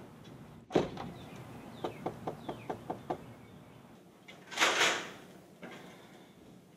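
A door shutting with a sharp thud, then a run of about eight quick light taps, and a brief rush of noise about five seconds in.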